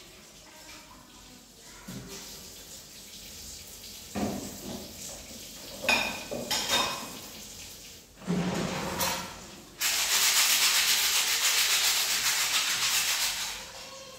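Work at a kitchen sink: a few clatters and knocks of dishes or utensils, then a tap running in a steady stream for about four seconds before it is turned off.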